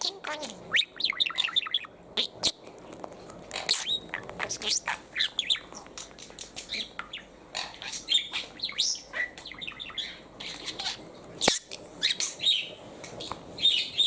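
Budgerigar chattering: a running series of short, high chirps and warbling notes. There is one sharp click a little past eleven seconds in.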